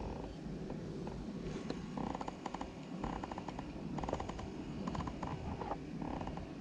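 Ultralight spinning reel being cranked in short spells with pauses between, a fast fine ticking during each turn of the handle, over a low steady rumble.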